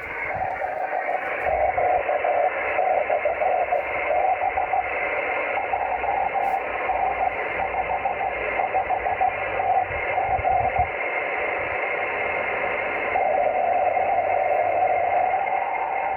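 A 24 GHz CW beacon heard over a radio receiver by rain scatter, as a rough, smeared tone over steady receiver hiss. For about the first ten seconds the tone is broken into short pulses, then it fades briefly. From about thirteen seconds in it comes back as a steadier tone.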